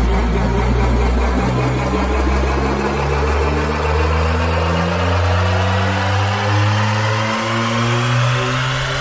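Electronic bass house build-up: a stepping synth bassline under a sweep that climbs steadily in pitch through the second half, with the deepest bass dropping out about halfway through.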